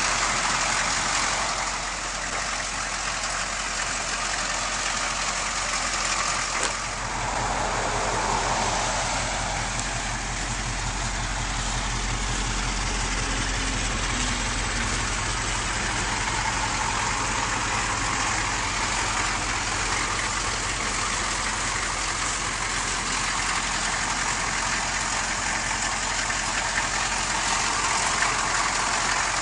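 Chevrolet K5 Blazer's 6.2-litre V8 diesel engine running steadily, a low hum under a constant hiss. There is a click about seven seconds in, after which the low engine hum grows somewhat stronger.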